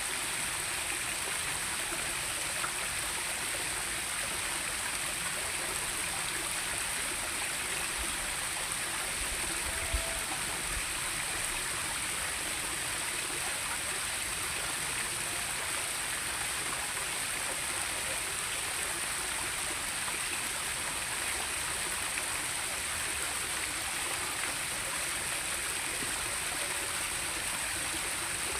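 Steady rushing of flowing water, with a constant high hiss over it and one faint knock about ten seconds in.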